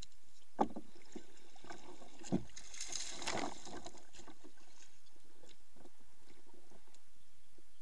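Kayak paddling: a double-bladed paddle dipping and pulling through the water, with a splashy rush of water about three seconds in. Two sharp knocks, about half a second and two seconds in, stand out as the loudest moments.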